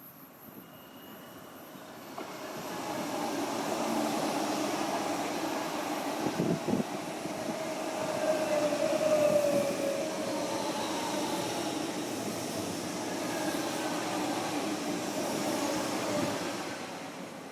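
Train passing on the tracks. It builds up over a couple of seconds, runs for about thirteen seconds with a thin, slightly falling wheel squeal through the middle and a few knocks about six seconds in, then fades near the end.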